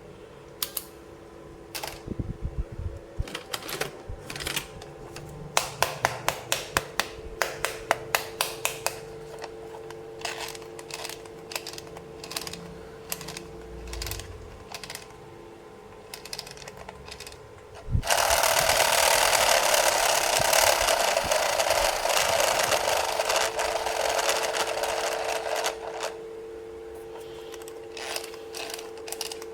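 Small plastic toy parts and packaging being handled, with many sharp clicks and taps. About two-thirds of the way in, a louder steady rushing noise lasts about eight seconds and then stops.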